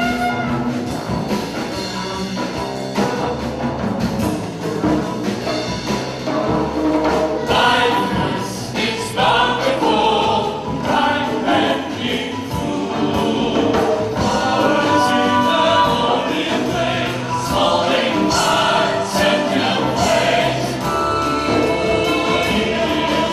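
A small vocal ensemble singing together over drum kit and cymbal playing.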